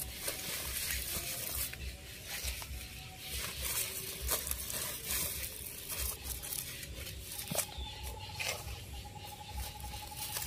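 Hands scooping loose soil into a woven polypropylene sack and pressing it down around a plant's stem: a run of crumbly scrapes and pats with the crackle of the plastic sack.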